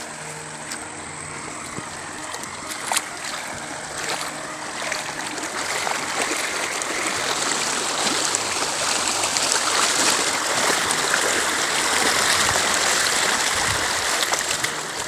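Steady rushing water noise, like a stream, growing louder about halfway through.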